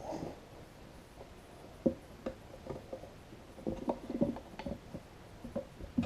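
Irregular clicks, knocks and scraping of hand tools prying at a stubborn mower tire on its rim, with a sharp knock about two seconds in and a busier stretch of rubbing and scraping past the middle.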